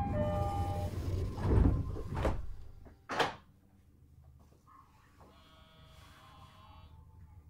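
The last notes of the train's door chime, then the sliding passenger doors of a JR E131-1000 series train closing with a rumble and shutting with one sharp bang about three seconds in. Afterwards the car is quiet with a faint hum.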